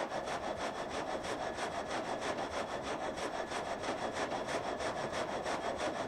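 Saw blade of a water-powered sawmill cutting through timber in a steady, fast, even rhythm of strokes.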